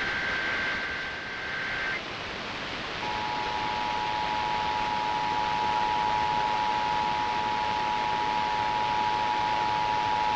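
Emergency Alert System test on FM radio: the digital data header's buzzing two-pitch burst cuts off about two seconds in. About a second later the steady two-tone attention signal starts and holds, all over constant radio hiss.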